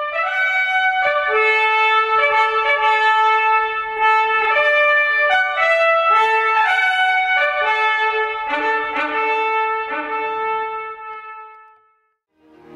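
Trumpets playing a passage in several parts, a held lower note under moving higher notes, dying away over the last couple of seconds.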